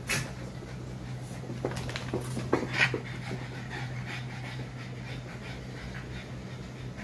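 Boston Terrier panting, over a steady low hum, with a few short sharp knocks between two and three seconds in.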